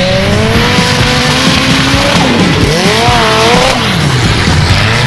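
Formula offroad buggy engine revving hard, its pitch dropping about two seconds in and climbing again around three seconds, with background music underneath.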